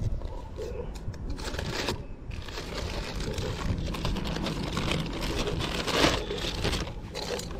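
Clear plastic bag being handled and crinkled, with irregular rustling and crackling, loudest about six seconds in.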